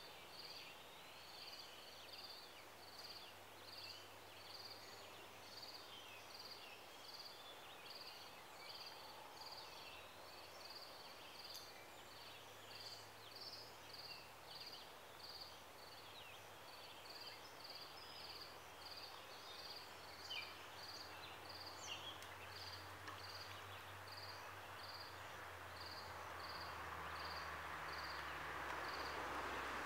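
Faint outdoor ambience: a short high chirp repeats evenly about three times every two seconds, with scattered other calls and a low hum. A noisy rushing sound swells near the end.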